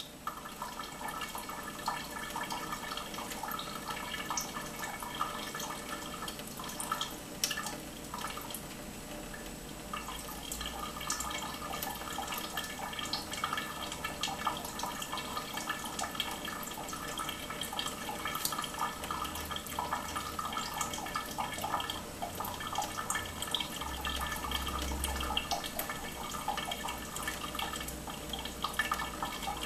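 A thin stream of tap water trickling from a kitchen faucet into a stainless steel sink, with a steady patter of small drips and splashes.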